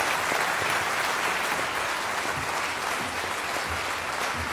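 Audience applauding in a large hall, a steady dense clapping that slowly fades near the end.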